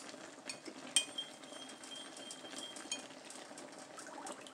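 Metal spoon clinking and scraping against a ceramic bowl as coconut milk is spooned out of it into the pan. A few sharp clicks, one about a second in that leaves the bowl ringing for about two seconds.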